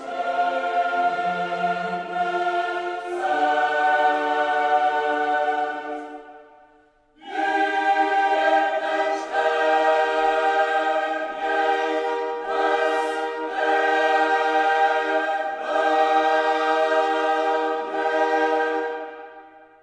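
Choral music: a choir singing long held chords. It breaks off about a third of the way through, comes back about a second later, and fades out at the end.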